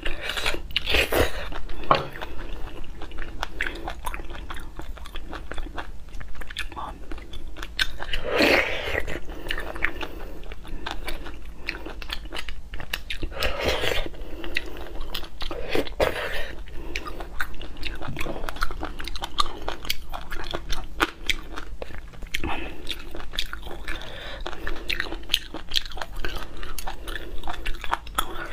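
Close-miked wet chewing and mouth sounds of eating spicy beef bone marrow, with many small clicks and a few louder slurps as the soft marrow is sucked from the bone, one of them about halfway through.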